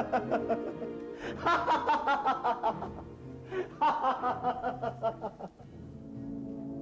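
A man laughing in three long runs of rapid 'ha-ha' pulses, stopping about five and a half seconds in, over background music with a sustained chord.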